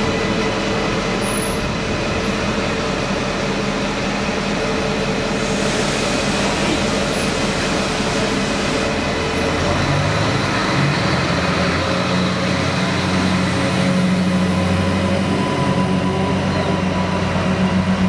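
Adelaide Metro 3000-series hybrid diesel railcar moving along the platform: its diesel engine drones steadily over the rumble of wheels on rail, and the drone grows louder after about ten seconds.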